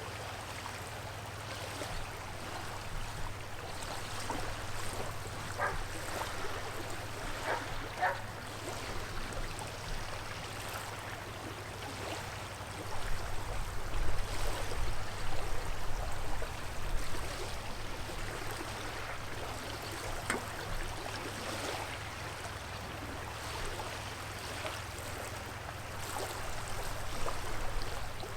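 Steady sound of running water, with scattered small splashes. A louder low rumble comes in for a few seconds around the middle.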